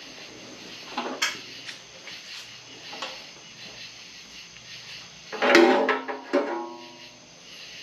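Metal parts knocking and clanking against each other: a few light knocks, then a louder clatter about five and a half seconds in and another knock just after, each ringing briefly.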